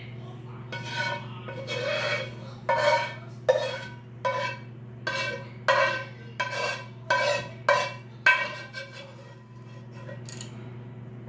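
A metal kitchen utensil scraping against a steel cooking pot in about a dozen quick strokes, which stop about nine seconds in, over a steady low hum.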